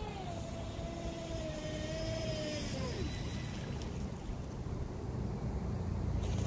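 Radio-controlled speedboat's motor whining, the pitch dropping as it slows and fading out about three seconds in. A steady low rumble runs underneath.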